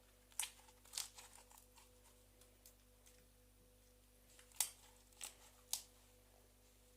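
Slime being squeezed and stretched by hand, with sharp clicking pops of trapped air: two near the start and three more close together after about four and a half seconds, with faint crackling between them.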